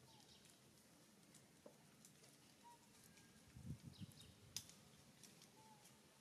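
Near silence: faint outdoor background with a few soft clicks, a couple of low soft thuds a little past halfway and one sharp click soon after.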